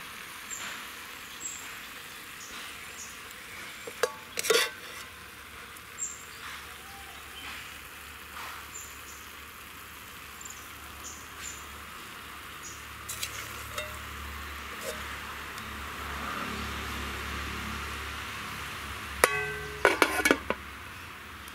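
Brinjal curry sizzling in a steel kadai over a wood fire, with a steel spatula scraping and clinking against the pan. A few strikes come about four seconds in. Near the end a steel lid clanks several times as it is set on the pan.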